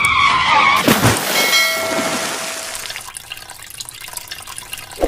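Plastic toy tractor splashing into river water about a second in, after a brief high whine, then water sloshing and dripping around it as it floats upside down, fading away.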